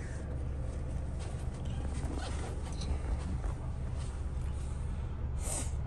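Steady low rumble of a moving car heard from inside the cabin, with a short hiss about five and a half seconds in.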